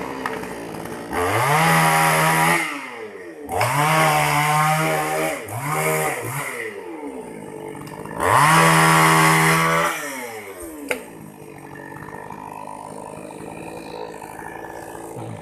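Two-stroke chainsaw engine revved up to high speed four times, each rev held a second or two and dropping back between, then left idling steadily. A single sharp click comes shortly after the last rev.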